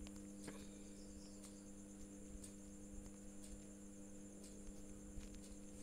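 Faint room tone: a steady low hum with a thin, high-pitched whine over it, and a few faint clicks.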